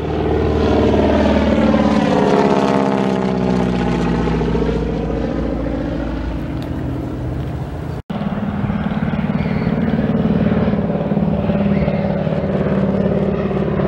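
Noorduyn Norseman's nine-cylinder radial engine and propeller droning as the plane banks past overhead, the note sweeping and phasing as it passes. A brief dropout about eight seconds in, then a steady engine drone.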